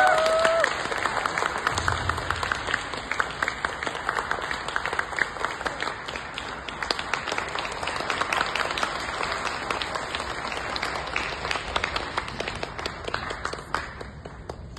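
Audience applauding at the end of a dance, loudest at the start and thinning toward the end. A short rising tone sounds at the very start.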